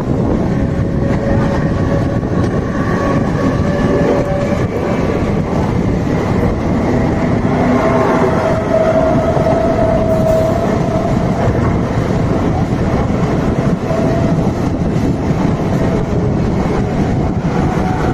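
Mumbai suburban electric local train running on the rails, heard close up from a train doorway: a steady loud rumble and rattle of wheels on track. A whine holds a steady pitch over it, strongest about eight to eleven seconds in.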